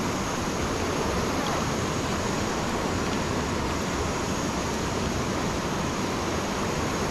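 River rushing over rocks: a steady, unbroken roar of water.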